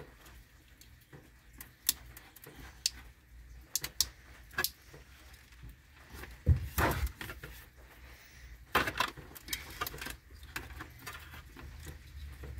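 Scattered clicks and knocks of a plastic tail light assembly and its retaining tabs being handled and pushed. There is a louder clatter about six and a half seconds in and another cluster of clicks around nine seconds in.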